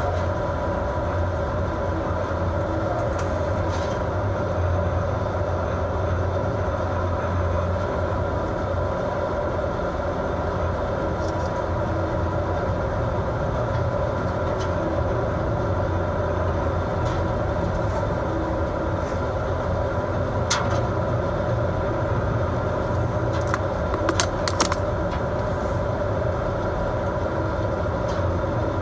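A fishing boat's engines and machinery running with a steady drone and hum, over rushing noise from the heavy seas. There are a few sharp knocks in the last third.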